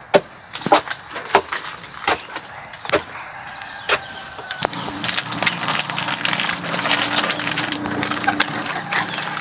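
Wooden pestle pounding into a stone mortar, one dull thud about every 0.7 seconds. After about five seconds the pounding stops and a steadier rustling noise with small clicks takes over.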